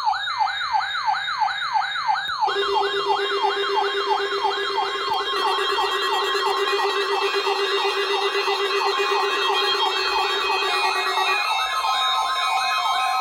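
Layered electronic siren and alarm tones: a fast, repeating falling whoop about three times a second over a wavering high tone, with a steady lower tone joining about two and a half seconds in and more tones stacking on top.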